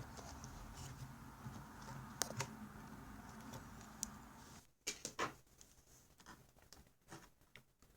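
Faint, scattered small clicks and taps of hands handling plastic laptop parts as the screen's display cable is tucked back into its routing, over a faint low hum that cuts out about five seconds in.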